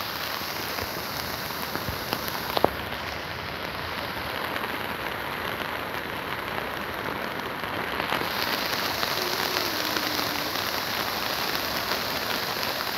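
Steady rain falling, with one sharp click about two and a half seconds in.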